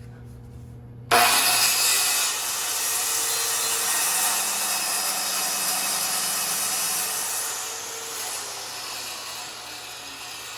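Circular saw starts up about a second in and cuts through a wooden board, running loud and steady for several seconds before the sound tapers off near the end as the cut finishes.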